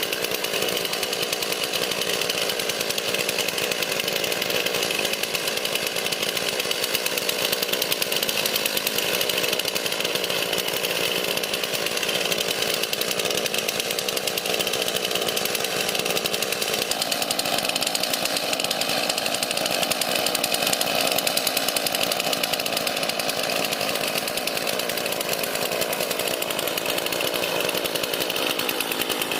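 Chainsaw running steadily at high speed without a break, most likely cutting through wood.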